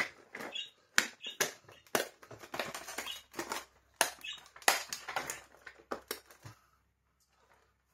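Rapid clicks, knocks and rustling of plastic parts being handled as a cordless vacuum's floor head is taken apart.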